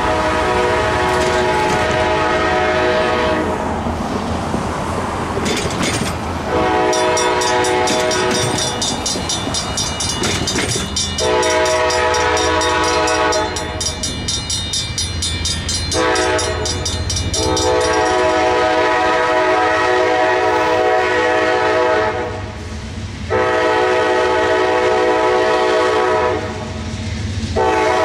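Locomotive air horn sounding a series of long blasts with short gaps for the grade crossing. A railroad crossing bell rings rapidly beneath the horn for part of the time.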